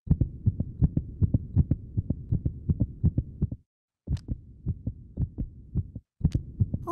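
Heartbeat heard through a stethoscope: a fast, even run of low beats that stops briefly twice, a little past the middle and near the end.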